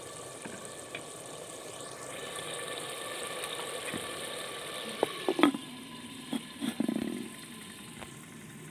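A clay lid clattering onto a clay cooking pot: a few sharp knocks about five seconds in and another cluster a little later. Under them runs a steady low hum.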